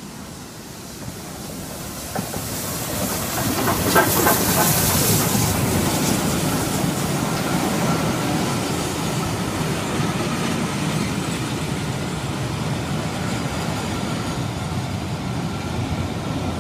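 LNER A3 Pacific steam locomotive Flying Scotsman drawing into the station with its train, growing louder as it nears, with a hiss about four seconds in as the engine goes by. Then a steady sound of its coaches' wheels running slowly past on the rails as the train slows to stop.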